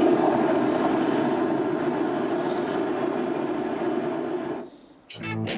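Portable dual-ring gas stove burner running with a steady rushing flame, slowly getting a little quieter, then cutting off about four and a half seconds in; music starts near the end.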